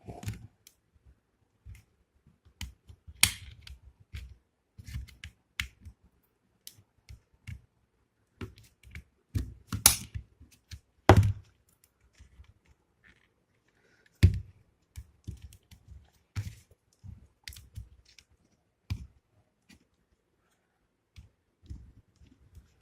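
Plastic housing of a Philips QT4006 trimmer being pried open with a knife: irregular clicks, taps and knocks, with a few louder sharp snaps about halfway through as the casing gives.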